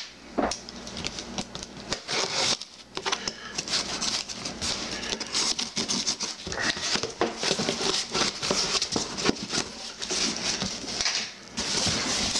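Plastic air-pillow packing crinkling and cardboard scraping as they are handled and lifted out of a shipping carton, an irregular rustle with many small clicks.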